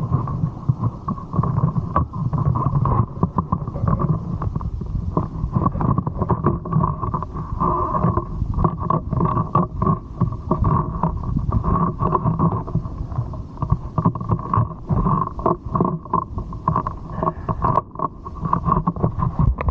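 Snowboard sliding and carving over packed, tracked snow: a continuous rumble with rough, chattering scrapes from the base and edge. Wind buffets the microphone.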